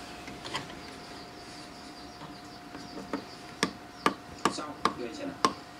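Sharp plastic clicks and taps from a syringe and the parts of an Epson inkjet printer being handled while the printhead is flushed: one click early, then about two a second in the second half, over a faint steady tone.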